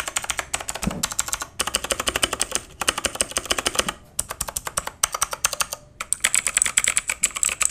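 Typing on an E-Yooso Z94 wired keyboard: fast runs of key clicks, several a second, broken by brief pauses between bursts.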